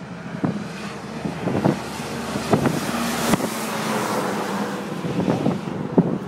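Road traffic passing, swelling to its loudest about three seconds in and then fading, with wind buffeting the microphone.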